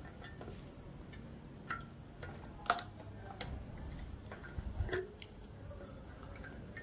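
Key turning in the locking chrome fuel cap of a Royal Enfield Classic 350 tank, giving a few light metallic clicks, the sharpest about halfway through.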